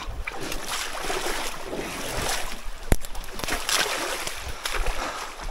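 Water splashing and sloshing with scraping and rustling as a person crawls on hands and knees through a shallow creek under a fallen log, with one sharp knock about three seconds in.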